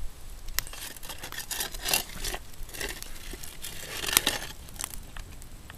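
Popcorn cooking in a pot over a campfire: scattered sharp pops and crackles over a rustling, shaking noise.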